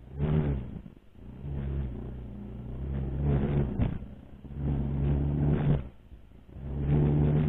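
Racal MC 125 dirt bike's 125 cc single-cylinder engine under load on a muddy trail, the throttle opened and closed in about five bursts so the engine note swells and drops repeatedly.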